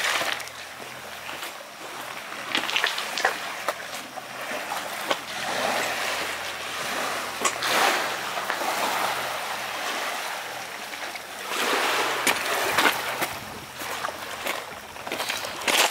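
Small sea waves lapping and splashing against a pebble shore and rock ledges, swelling and easing in irregular surges every few seconds.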